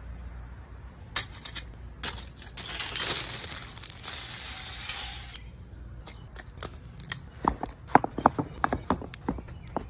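Lit charcoal poured out of a chimney starter onto the coals in the fire pit, a rushing rattle lasting about three seconds that starts two seconds in. Near the end comes a run of sharp, glassy clinks and knocks as split wood is set down on the charcoal.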